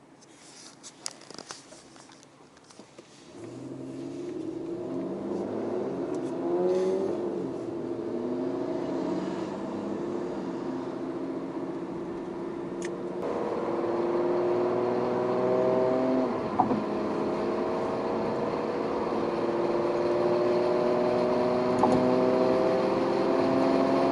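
Car engine running under load as the car drives, starting about three seconds in after a few faint clicks. Its note climbs slowly, with a step up about thirteen seconds in.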